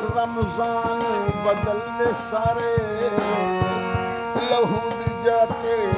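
Harmonium playing held notes under a man's ornamented singing, with tabla strokes keeping time.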